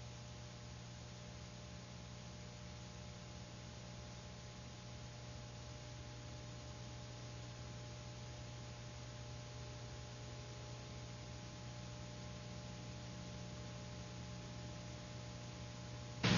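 Steady electrical hum with faint hiss, the background noise of an old film soundtrack with nothing else on it. Something much louder cuts in right at the very end.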